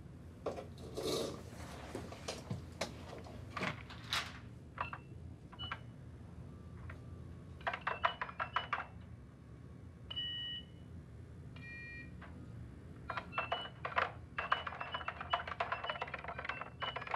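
Push-button desk telephone being keyed rapidly: bursts of quick key clicks mixed with short high electronic beeps and a few brief held tones, over a low steady hum.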